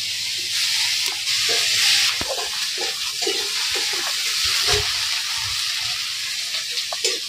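Chopped onions sizzling in very hot oil in a kadhai, the sizzle strongest in the first couple of seconds, with a metal ladle scraping and knocking against the pan as they are stirred.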